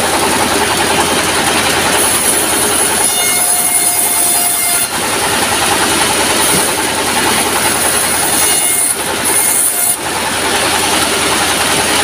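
Sawmill saw ripping planks lengthwise: a loud, continuous cutting hiss and whine that swells and eases every few seconds as each board is fed through, over the steady running of the stationary diesel engine that drives it.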